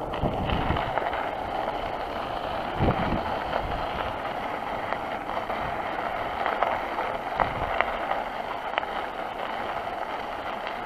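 Bicycle tyres rolling over a gravel and dirt path, a steady rolling noise with a few short knocks and rattles from the bike over bumps.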